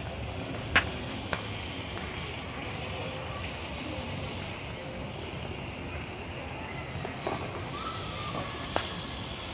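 Outdoor ambience: steady background noise with faint distant voices, broken by a sharp click about a second in, a smaller one just after, and another near the end.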